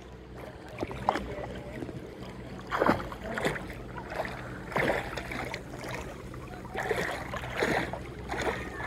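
Sea water splashing and sloshing around a swimmer, in irregular short swishes every second or two.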